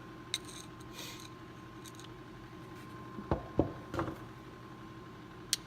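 A few scattered light clicks and knocks from metal hand ratchets being handled, with no rapid run of ratchet-pawl clicking.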